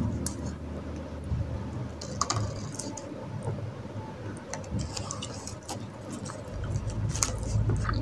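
Close-up eating sounds: scattered soft clicks and smacks of chewing, with fingers picking apart meat over a paper food wrapper.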